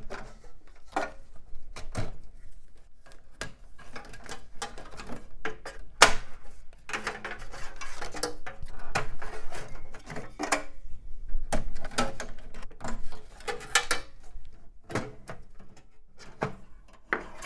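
Ribbon cables and plastic connectors being unplugged and pulled out of a steel PC case: irregular clicks, knocks and rustling of plastic against sheet metal.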